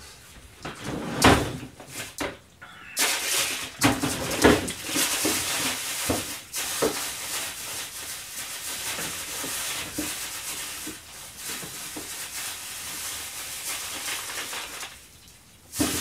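Kitchen handling noises: a few sharp knocks, then a long stretch of continuous rustling and clatter with many small clicks, which dies away near the end.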